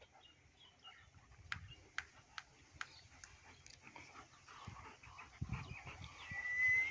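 A German shepherd whining in one thin, high, slightly rising note near the end. Before it come scattered light ticks and the soft scuffling of dogs moving about.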